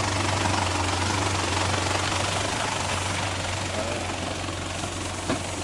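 A steady engine-like drone: a constant low hum under an even rushing noise.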